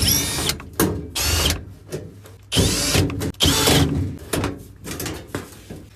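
Electric screwdriver spinning out the screws of a washing machine's back cover in a run of short whirring bursts, the longest in the first four seconds, then shorter ones near the end.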